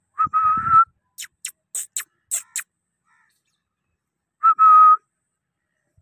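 Indian ringneck parakeets whistling and chirping: a clear, steady whistle (a short note then a longer held one), a quick run of about six sharp, high chirps, then the same two-part whistle again about four and a half seconds in.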